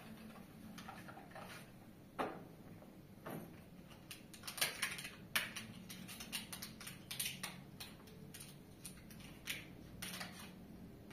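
Irregular light clicking and tapping of small objects being handled, with a few sharper clicks about two, four and a half and five and a half seconds in.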